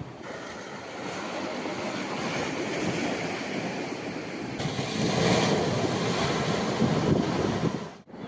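Sea waves washing onto the shore, with wind buffeting the microphone; the surf swells louder about five seconds in.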